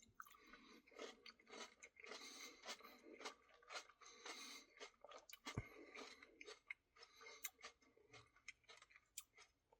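Faint close-up chewing of ice cream, with many soft wet mouth clicks and small crunches scattered through.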